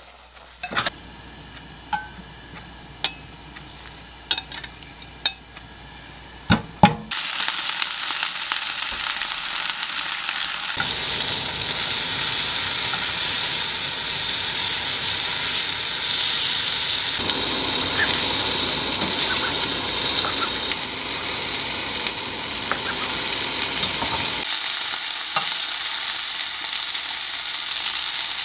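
Beef flat iron steak searing in a grill pan on a gas hob. A few sharp clicks and knocks come first. About seven seconds in, a loud steady sizzle of the meat frying starts suddenly and grows louder around twelve seconds.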